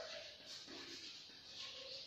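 Faint scratching of chalk on a blackboard as words are written by hand.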